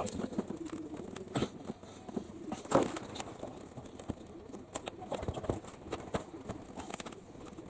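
Scattered clicks and knocks of screws and hand tools as a dishwasher door panel is taken apart, with one louder knock about three seconds in.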